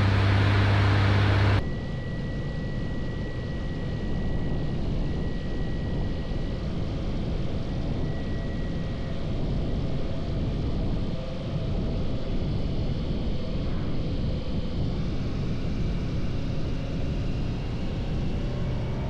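Kitfox light aircraft's engine and propeller droning steadily on final approach over wind noise, with a loud steady low hum in the first second and a half. Near the end the engine pitch starts to rise as power comes in for a go-around after a late flare.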